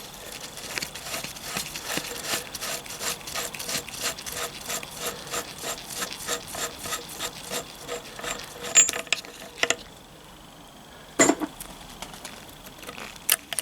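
A hand tool working a previously loosened nut off a motorcycle gearbox shaft: quick, even rasping strokes, about four a second, that stop about ten seconds in, followed by two sharp metallic clicks.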